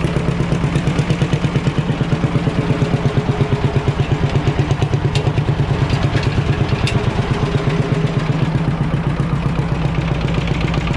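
Ursus C45 tractor's single-cylinder two-stroke hot-bulb engine running at a low speed, with a fast, even beat of firing pulses.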